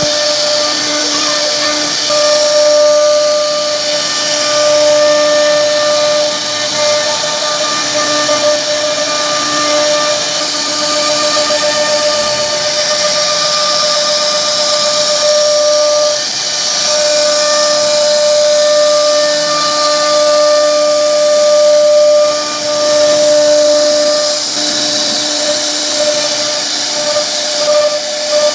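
CNC router spindle running with a steady high whine while its bit carves curved grooves into a wooden panel, over a hiss of wood being cut.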